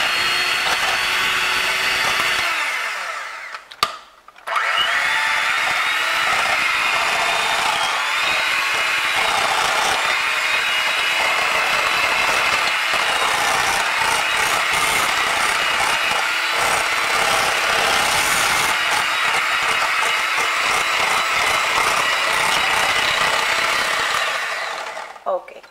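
Electric hand mixer running steadily with its beaters in cream cheese, beating it soft and smooth. The motor winds down and stops about three seconds in, starts again about a second later, and is switched off near the end.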